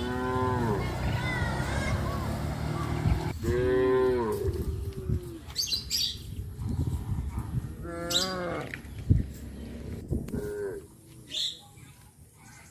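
Cows mooing, about four separate calls, the longest a little over a second.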